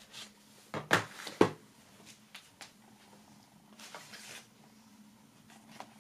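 Items from a DVD box set handled on a wooden tabletop: a quick cluster of knocks and clicks about a second in, a few small taps, and a short rustling slide near the middle, over a faint steady hum.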